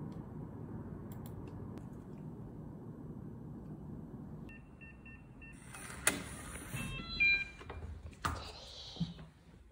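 Steady low room hum, then a digital door lock: a few short keypad beeps, a short falling chime as it unlocks, and the clicks and clunk of the door opening.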